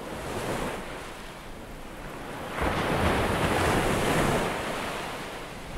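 Ocean waves: a wash of surf that swells fairly suddenly about two and a half seconds in, then slowly ebbs.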